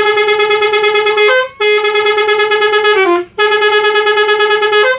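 Basuri V3 multi-tone bus horn (klakson telolet) playing a tune: three long held notes of about a second and a half each, the first and last ending with a brief step up in pitch and the middle one stepping down.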